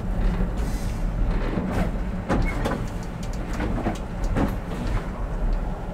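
Oslo tram running slowly over track, heard from inside the driver's cab: a steady low rumble with irregular clicks and knocks from the wheels and running gear.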